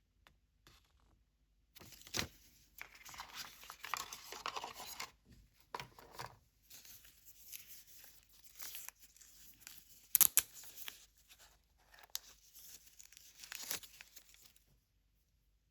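Packaging being torn open and crinkled by hand, in irregular bursts of rustling with a few sharp clicks, the loudest about ten seconds in. The sound stops near the end.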